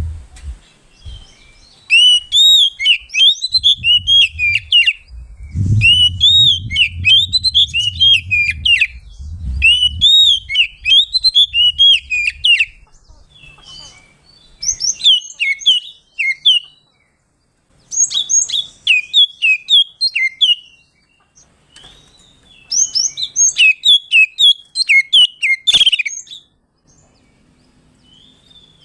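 Oriental magpie-robin (kacer) singing its loud, full challenging song: bouts of a few seconds of quick, repeated rising-and-falling whistled notes, broken by short pauses, the kind of song that calls out a rival.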